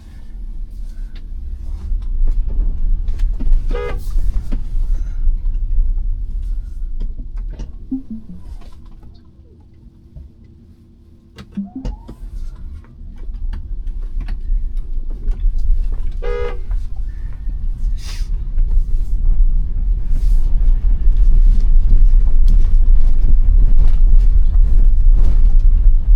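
Two short car-horn toots, about four and sixteen seconds in, over a loud low rumble that drops away for a few seconds in the middle.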